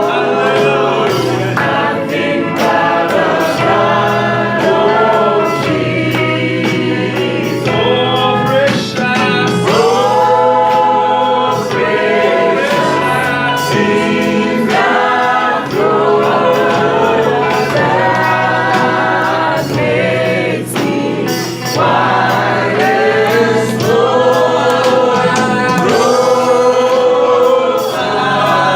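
Choir singing a gospel song, several voices together over a steady low backing.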